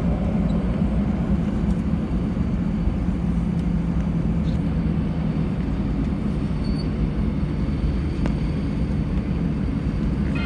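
Airliner cabin noise while taxiing after landing: the engines run at low power, heard from inside the cabin as a steady low rumble with a constant hum.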